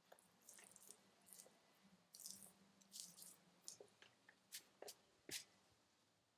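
Near silence with faint, scattered short rustles and clicks over a faint low hum.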